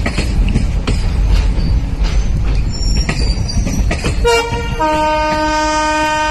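Twin WDM-3A diesel locomotives pulling away with a heavy rumble and knocks of wheels over rail joints. About four seconds in, the air horn sounds: a short blast, then a long held blast.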